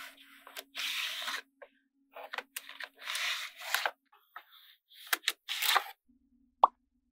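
Magnetic balls and a white card scraping and sliding into place on a magnetic-ball model, in three rasping scrapes about a second long with sharp clicks of the balls in between.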